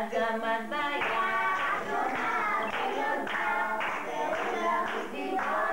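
A song sung by voices, with hands clapping along.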